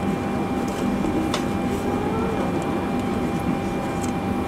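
Steady cabin noise inside a Boeing 767-300 airliner on the ground: an even rumble and hiss with a constant high whine and a few faint clicks.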